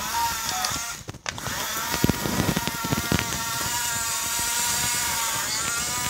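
Electric drive motors and gearboxes of an Amewi 22518 RC bulldozer whining steadily as it crawls and pushes sand on its tracks. The whine stops for a moment about a second in, then resumes with a few clicks.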